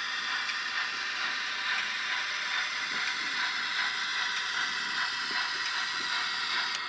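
H0-scale model G4/5 steam locomotive running slowly: a steady mechanical whirr of its motor, gears and wheels on the track.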